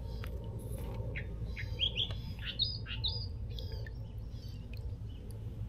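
Small bird chirping: a quick run of short, high chirps in the middle, over a low steady rumble.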